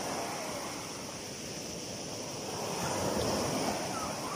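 Small surf breaking and washing up the shore, swelling and easing.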